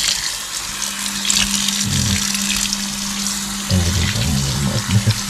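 Tap water running steadily into a sink as food is rinsed under it.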